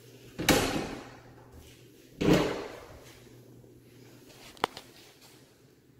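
Double closet doors being pulled open, one after the other: two short rushing swishes about two seconds apart. About four and a half seconds in there is one sharp click.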